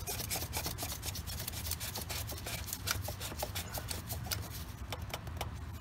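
Oil filter cap on a 3.6L Pentastar V6 being screwed down onto its housing by hand, a gloved hand rubbing and turning it with a quick, irregular run of small clicks.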